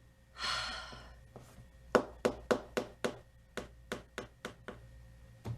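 A short rustle, then a quick run of about ten sharp taps, roughly four a second, the first one loudest.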